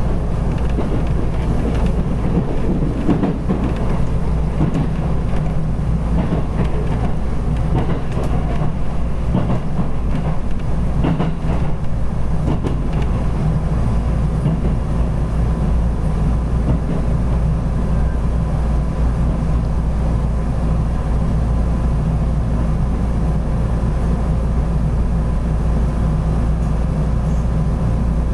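Two-car JR Kansai Main Line rapid train running along the line, heard from inside the carriage: a steady rumble of wheels on rails with light clatter and a faint constant hum.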